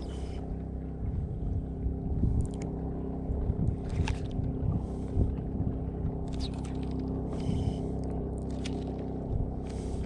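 Boat sitting on choppy, wind-ruffled water: a steady low hum under uneven wind buffeting on the microphone, with scattered small clicks and splashes.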